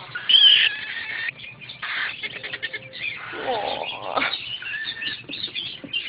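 Baby quaker parrots (monk parakeets) chirping and squawking: a run of short, high chirps, with a loud call just after the start and a longer squawk sliding up and down around the middle.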